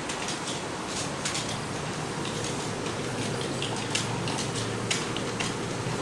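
Computer keyboard keys being typed on during a home-row typing speed test: a quick, irregular run of key clicks over a steady background hiss.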